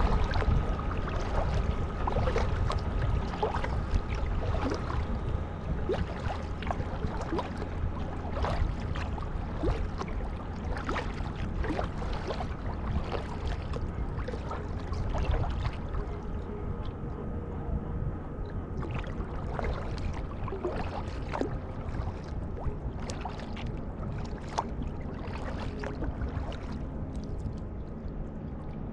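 Kayak paddling: the paddle blades dipping and splashing, with water dripping and sloshing in many small irregular splashes over a steady low rumble.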